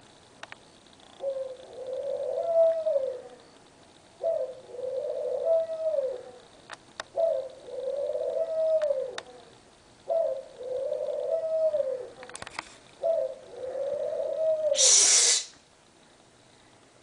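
A dove or pigeon cooing five times, about every three seconds. Each coo is a short note followed by a longer one that rises and falls. A brief hiss or rustle comes near the end.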